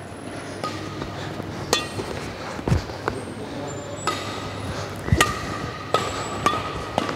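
Badminton rackets striking a shuttlecock in a fast, flat drive rally: a series of sharp hits about once a second, coming closer together in the second half.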